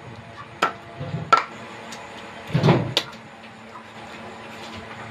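Meat cleaver chopping chicken on a wooden log chopping block: a few sharp, unevenly spaced knocks in the first three seconds, then a pause.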